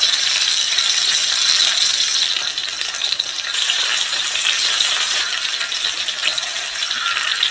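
Lobster and egg frying in a pan: a loud, steady sizzle with many small crackles and spits.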